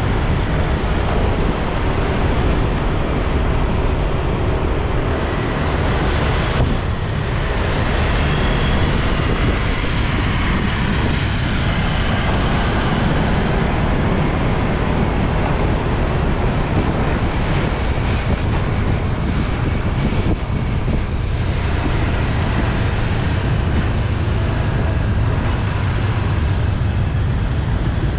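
Steady wind noise on the microphone of a moving motorbike, over the running of motorbike engines and tyres in traffic.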